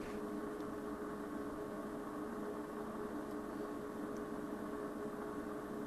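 Steady electrical hum with a few held tones over a faint hiss, typical of running electronic equipment in a small room.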